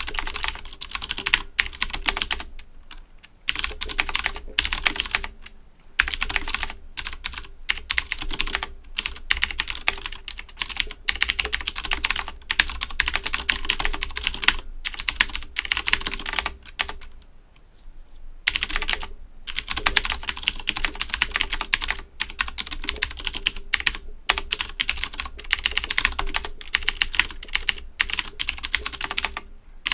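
Fast typing on an Owltech OWL-KB109BM II mechanical keyboard with Cherry MX Blue switches, a dense run of sharp key clicks broken by short pauses now and then.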